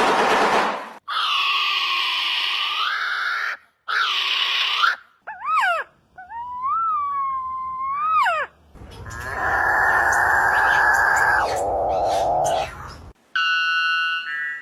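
A run of strange bird calls: harsh screeching notes, then a clear whistle that wavers up and down, then a long, rough, noisy call.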